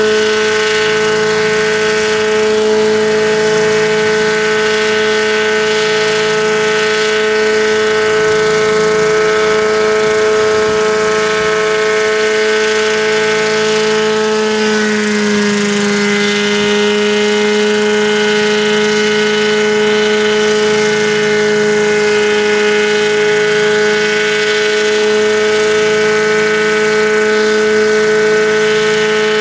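Helitrike microlight helicopter with contra-rotating rotors running at hover power: a loud, steady whine with several pitches. About halfway through the pitch dips slightly and holds a little lower.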